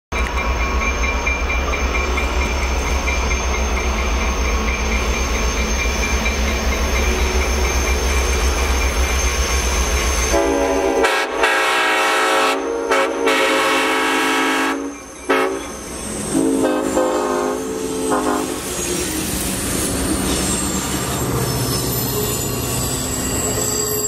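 Clinchfield 800 diesel locomotive rumbling as it comes through the tunnel, then sounding its air horn about halfway through: a long chord broken by brief gaps, then a second shorter blast. After the horn, the train's passenger cars roll past on the rails.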